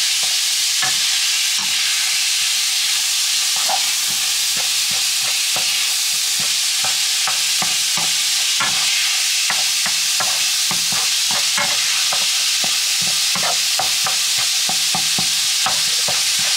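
Minced meat and onion sizzling in a nonstick frying pan: a steady frying hiss, with frequent light, irregular clicks and scrapes of wooden tongs stirring against the pan.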